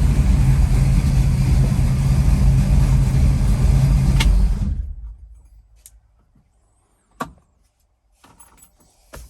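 Freshly rebuilt Ford 331 stroker V8 running steadily, its mixture still untuned, then shut off about four seconds in and dying away within a second. A sharp click follows a few seconds later, with faint rustling and another click near the end.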